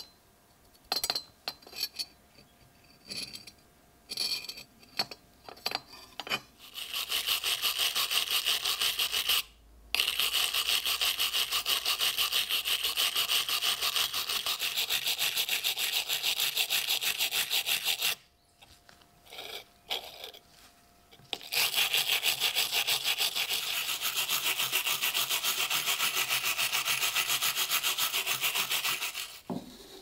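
A small wire brush scrubbing fast back and forth over the corroded copper-alloy crown emblem of a WWI German belt buckle, a rapid, even, scratchy rhythm. Light handling clicks come first. The scrubbing starts about six seconds in, pauses briefly near ten seconds, breaks for more clicks at about eighteen seconds, resumes, and stops just before the end.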